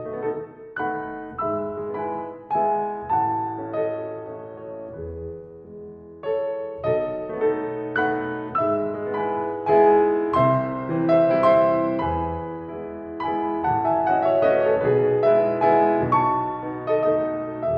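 Solo piano playing a flowing melody over chords, the notes struck in a steady stream and growing louder about halfway through.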